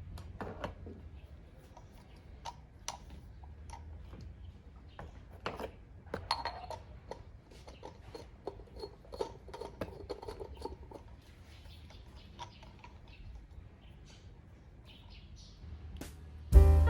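Scattered light clicks and taps of small objects being handled, some with a glassy or ceramic ring, over a faint low hum. Piano music starts loudly near the end.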